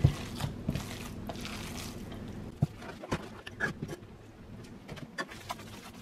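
Hands squishing and kneading a raw ground-beef meatloaf mixture in a bowl: soft, irregular wet squelches and small clicks.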